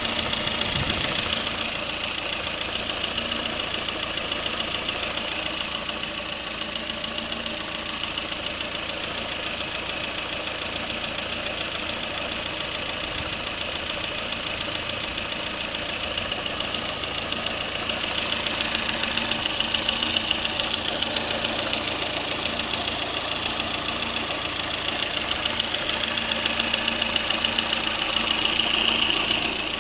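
Lada Kalina engine running with a fast, steady knock.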